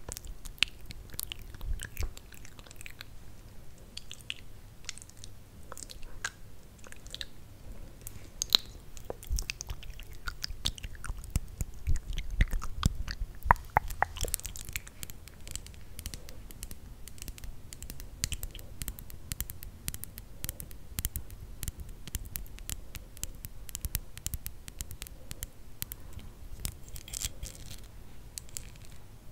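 Close-miked ASMR mouth sounds: a dense, irregular run of wet lip smacks and tongue clicks.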